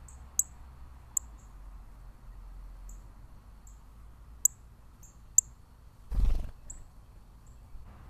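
Northern cardinal giving short, high chip notes, about a dozen scattered through, four of them sharper and louder. About six seconds in, a brief flurry of wingbeats as the cardinal takes off from the birdbath.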